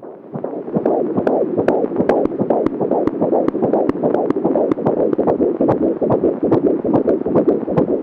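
Fetal Doppler loudspeaker playing a 16-week fetal heartbeat: a fast, whooshing pulse of blood flow with sharp clicks from the baby's heart valves opening and closing.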